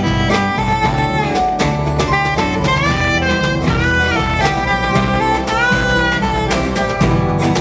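Live band playing an instrumental break, with a melodic lead line of bending, sliding notes over bass and a steady drum beat.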